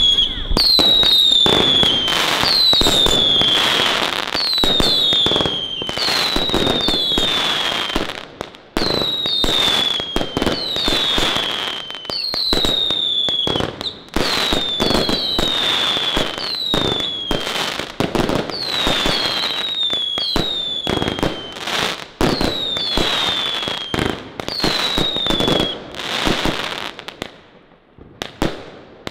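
Fireworks cakes firing at once: a Zena Time of Glory crackling fan cake and two Muffler whistle-and-bang cakes. Falling whistles, often two together, come about once a second, each ending in a bang over a steady barrage of shots and crackle. The barrage dies away about 27 seconds in.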